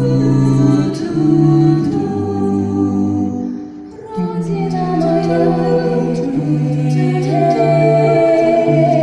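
A small vocal ensemble singing a cappella in close harmony, several voices holding long chords. About four seconds in the singing briefly thins and drops, then picks up again with a higher voice carrying the tune over the held lower parts.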